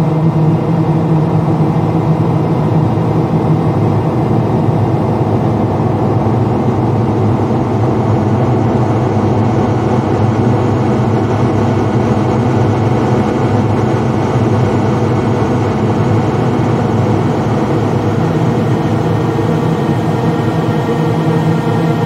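Dark, eerie horror ambience: a steady, dense low drone of many held tones, with no distinct events.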